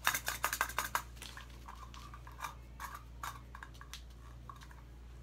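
Plastic kinetic sand tools and molds clicking and clattering as they are handled. The clicks come in a quick run during the first second, then more sparsely, and stop about four seconds in.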